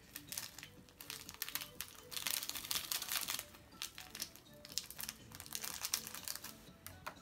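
Crinkling and rustling of a small clear plastic bag, handled in short bursts as glitter is shaken and pinched out of it, over faint background music.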